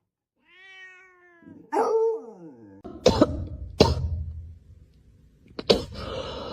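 A domestic cat meows twice: a drawn-out call falling slightly in pitch, then a shorter cry. Sharp noisy sounds follow, two strong ones about three and four seconds in and more near the end.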